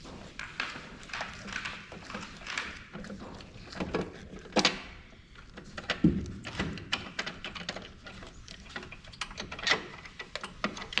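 Hand tools and small metal parts clicking and knocking irregularly as they are handled, with a duller thud about six seconds in.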